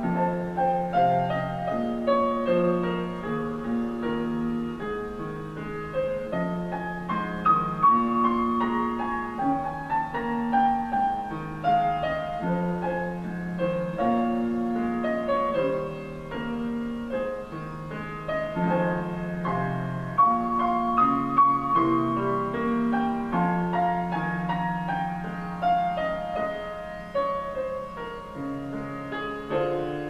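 Background solo piano music, a slow tune of held chords under a melody.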